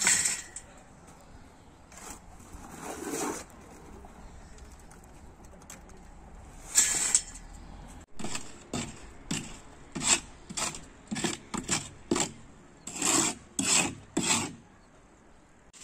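A run of short scraping strokes, about two a second, after a few scattered ones earlier.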